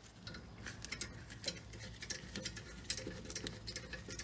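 Ratchet wrench clicking faintly in short irregular runs, several clicks a second, as a loosened caliper guide bolt on a rear brake caliper is backed out.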